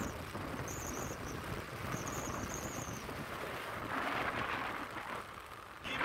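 Wind rushing over the microphone on a moving motorcycle: a steady rumbling hiss that swells briefly about four seconds in.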